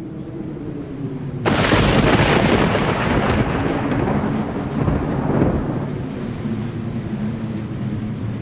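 Thunder sound effect: a sudden crack about a second and a half in that rumbles away over the next few seconds, over a steady low hum.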